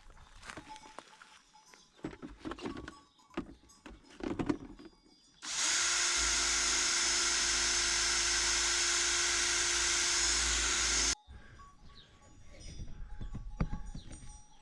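A few knocks and handling clatters, then a power tool motor runs steadily at one speed for about six seconds, starting and stopping abruptly.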